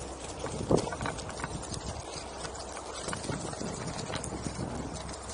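Onewheel electric board rolling over a dirt and leaf-litter trail: an uneven run of clicks, crunches and knocks from the tire and board going over bumps and debris, with one louder knock about a second in.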